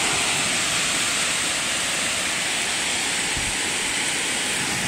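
Heavy thunderstorm rain pouring down, a steady even hiss.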